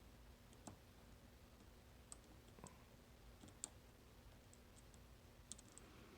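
Faint, irregular small metallic clicks of a homemade dimple pick working the pins of a nine-pin dimple lock while a tensioner holds the plug, about ten clicks spread unevenly.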